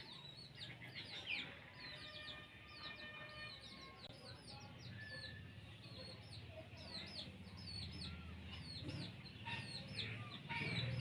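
Faint chickens and small birds: many short, high chirps repeating quickly throughout, with clucking, over a low hum, a little louder near the end.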